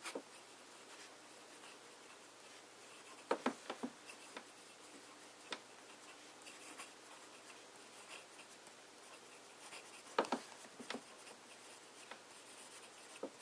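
Fountain pen with an italic nib writing cursive on paper: faint scratching of the nib across the page, with a few sharper ticks around three to four seconds in and again around ten seconds in.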